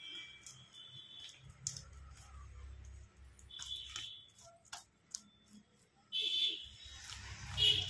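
Soft slaps and smears of a hand spreading Dalda vanaspati over a sheet of puff-pastry dough, with scattered light clicks. A short high-pitched tone comes and goes about four times.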